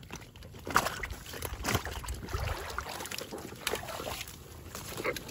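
Muddy water sloshing and dripping as a mesh fish trap is handled and lifted in the shallows, with a few sharp clicks.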